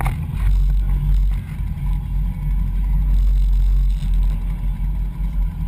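Wind and motion rumble on an action camera's microphone: a loud, steady low rumble, with a sharp click right at the start.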